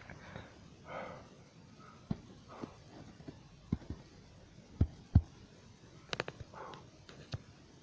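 Quiet pause between sneezes: a couple of short breaths and scattered soft clicks and knocks, the loudest a pair of thuds about five seconds in.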